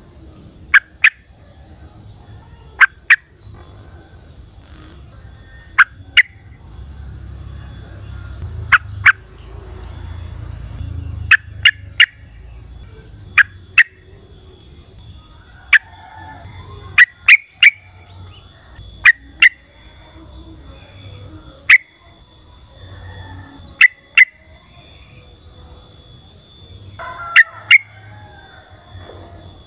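Yellow-vented bulbul giving short, loud, sharp call notes, singly or in quick pairs, every couple of seconds. A steady chorus of insects runs underneath: a pulsing trill and a high continuous whine.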